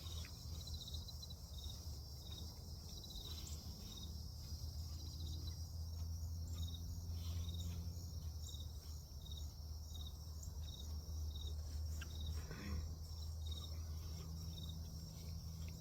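Crickets chirping in an even rhythm of a few chirps a second, over a steady low hum.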